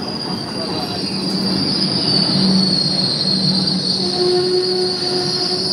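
Indian Railways passenger coaches rolling past a station platform, with a steady high-pitched squeal over the rumble of the wheels. A lower tone joins about four seconds in.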